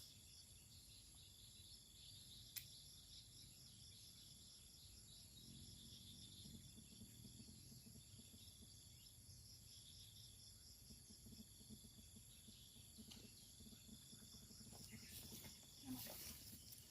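Faint insect chorus, a steady high-pitched pulsing buzz typical of crickets, with one short sharp click about two and a half seconds in.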